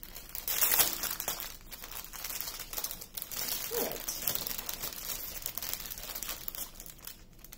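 Clear plastic packet of diamond-painting drills crinkling as it is handled and opened, in irregular bursts, loudest about a second in.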